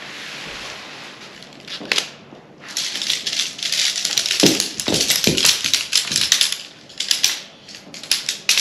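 Nylon tent fabric rustling as it is spread out, then lightweight tent poles clattering as the folded sections are unbundled. There is a dense run of clicks and rattles in the middle, and sharper single clicks near the end as sections snap together.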